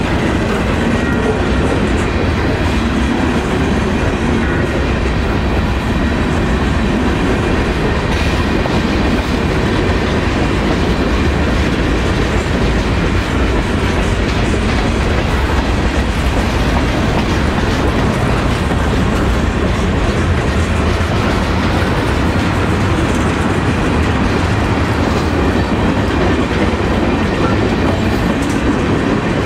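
Freight cars (gondolas, a boxcar, then tank cars) rolling steadily past at close range: a loud, even rumble and clatter of steel wheels on the rails.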